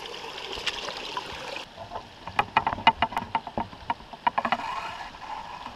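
Water trickling over stones in a shallow creek, then from about two seconds in a run of sharp, irregular clicks and knocks of stones underfoot as someone picks their way up the stony creek bed.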